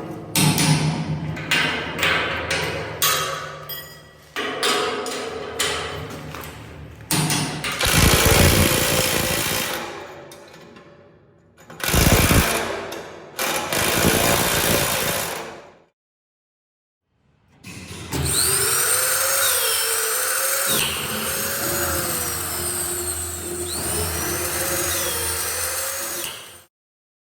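Demolition work on steel mechanical parking equipment: a power tool running and metal knocking and clanking, in several short cut-together segments, with a steady grinding stretch carrying gliding squeals near the end.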